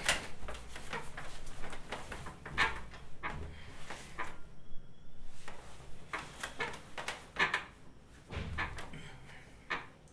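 Bedding rustling with irregular soft knocks and clicks as a person lies down and shifts on a pillow and sheets, quieter near the end.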